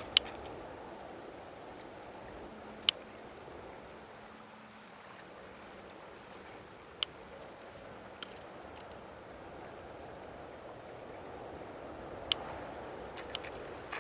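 A chirping insect calling at a steady pace, short high chirps about two or three a second, over a low rushing background haze. About six sharp clicks stand out, the loudest near the start and about three seconds in.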